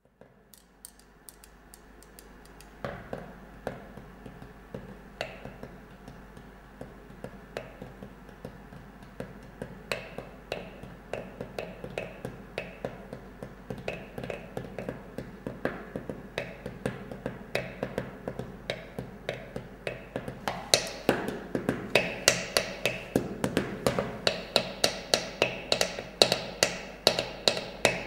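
Thin sticks tapping on a small metal tin and tabletop, in a steady run of sharp taps. They grow louder and come faster about two-thirds of the way through.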